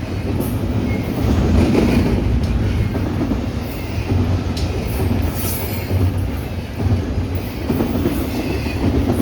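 BNSF freight train of double-stack container cars rolling past with a steady rumble of wheels on rail. There is a brief high-pitched wheel squeal a little after halfway.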